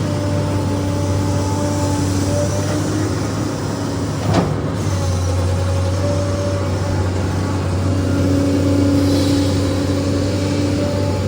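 SANY excavator's diesel engine running steadily, with one sharp knock about four seconds in.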